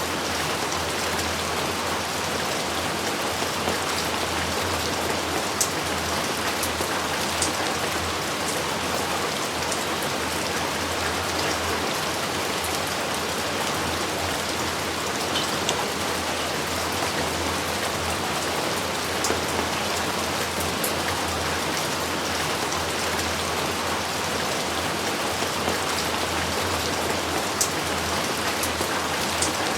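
Steady heavy rain falling, an even wash of noise with scattered sharp drop hits.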